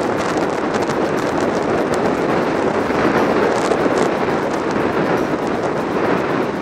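Steady wind rush over the microphone of a moving motorcycle's rider camera, mixed with road noise, with no clear engine note standing out.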